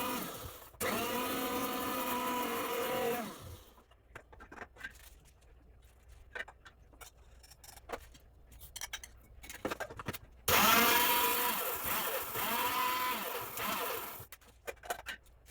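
Kitchen mixer grinder grinding dry oats and basmati rice into powder, run in pulses: the motor's whine rises and falls with each pulse. It runs for about three seconds, stops for several seconds with scattered clicks and rattles, then runs again for about four seconds.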